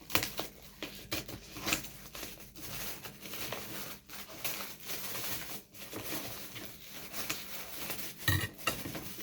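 A parcel's packaging being torn and crinkled open by hand: a run of irregular rustles and short rips.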